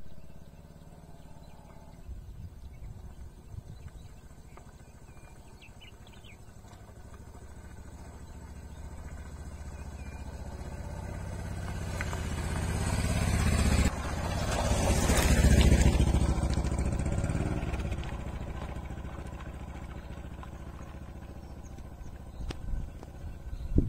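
Motorcycle engine running at low speed, growing louder as the bike approaches, loudest a little past halfway, then fading as it rides away. A few short clatters come near the end.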